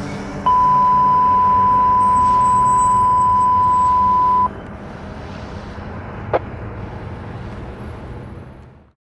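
Pierce fire engine driving away with its engine running and fading. About half a second in, a loud, steady, pure beep tone comes in suddenly and cuts off about four seconds later. A brief rising chirp sounds about six seconds in, and all sound fades out near the end.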